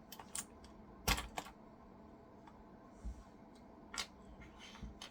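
A few scattered, sharp plastic clicks and taps from a mechanical keyboard and its keycaps being handled. The loudest click comes about a second in, and the rest are spread out irregularly.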